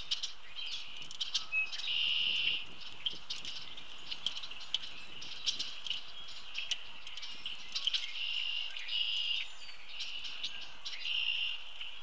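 A mixed flock of blackbirds calling at a feeder, mostly red-winged blackbirds with common grackles and European starlings among them. Many sharp clicky calls and chatter, with three short buzzy trills.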